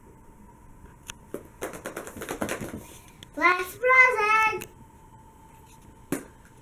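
A small plastic surprise egg clicking and rustling in a child's hands, then a child's voice calling out for about a second, its pitch rising and falling, and a single sharp click near the end.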